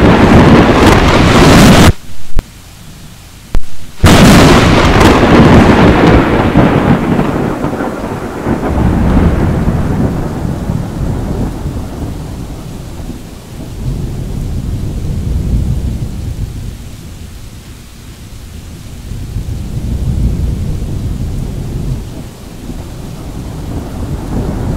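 Thunder from a close lightning strike: a loud crash cuts out abruptly for about two seconds. A second sharp crack then rolls into long, low rumbling that fades and swells again several times.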